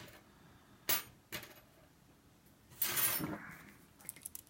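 Small metal lock-picking tools clinking and clattering as a different tension wrench is picked out and fitted. There are two sharp clicks, then a longer rattle about three seconds in and a few light ticks near the end.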